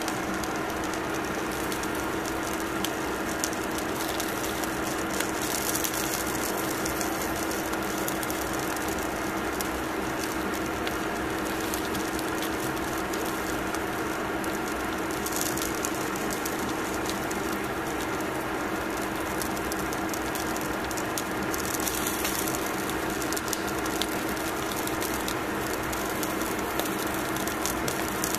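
Salmon fillet sizzling and crackling on foil in a grill, with many small pops and a few louder spells of hissing, over a steady hum from the cooker.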